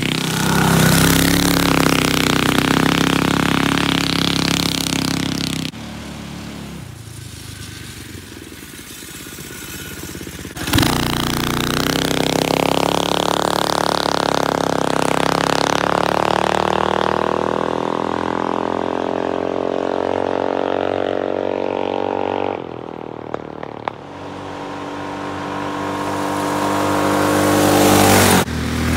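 Predator 212 single-cylinder engine with a Stage 2 kit, on a small Chinese ATV, running and being throttled. Its pitch drifts down for a stretch and then climbs near the end. The sound drops and jumps back abruptly several times.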